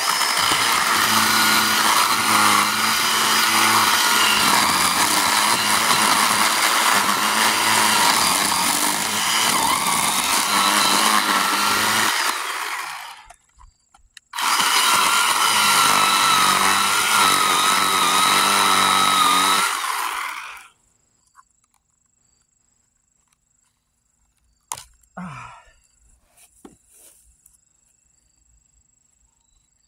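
Craftsman V20 10-inch cordless (20-volt battery) chainsaw cutting into a dense hardwood stump in two long runs of about thirteen and six seconds, with a short pause between, then stopping. The chain is very dull. Near the end, a few faint knocks.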